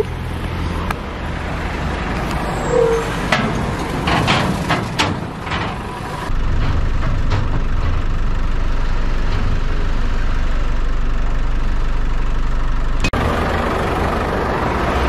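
Motor vehicle engine running while a car is loaded up ramps onto a tilt-tray truck, with a few sharp knocks in the first half, then a steadier low drone from about six seconds in.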